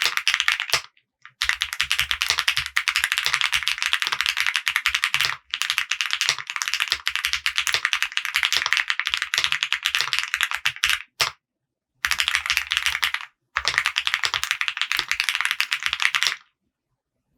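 Fast typing on a mechanical keyboard with lubed Akko CS Jelly White linear switches, an FR4 plate and ABS keycaps: a dense run of key clicks in several bursts with brief pauses, stopping about a second before the end.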